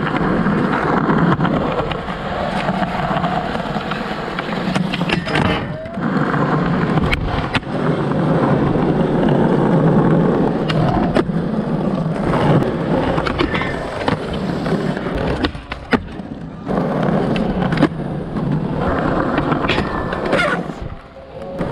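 Skateboard wheels rolling on smooth pavement, broken several times by the sharp clack of the tail popping and the board landing during tricks.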